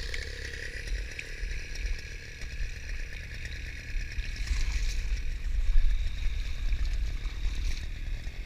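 Small air-cooled outboard motor with a homemade silencer running steadily as it pushes a kayak, getting a little louder about halfway through.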